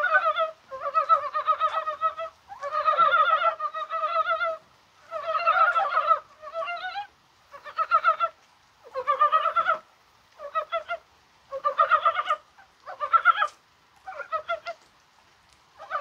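A chorus of Korean mountain frogs (brown frogs) calling: overlapping rapid, clucking trills, a dozen or so in a row with short gaps between them. This is a breeding chorus, which the uploader takes as a sign that the frogs are spawning.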